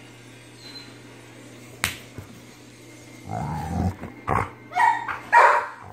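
Pit bull play-growling, then giving three short, sharp barks in rough play. A single sharp click comes a little earlier.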